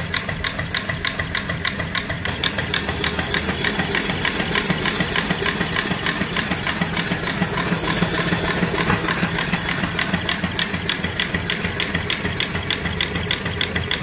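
Small 3-inch-bore steam engine on a vertical boiler running steadily, its exhaust chuffing up the stack in a steady 'chuck, chuck, chuck' of about six beats a second.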